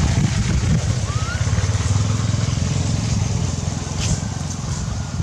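Low, steady rumble of a motor vehicle's engine, likely a motorbike, running close by, with a short rising squeak about a second in.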